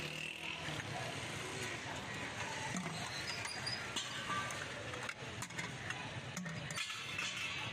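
Steady street noise with traffic, with scattered light clinks of a steel ladle and plate against small clay pots.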